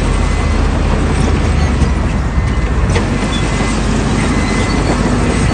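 Heavy diesel earthmoving machinery running with a loud, steady low rumble.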